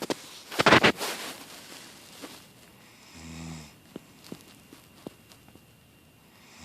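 A woman snoring in her sleep: one low-pitched snore lasting about half a second, a little over three seconds in. A short, loud rushing noise comes just before a second in, with a few faint clicks after it.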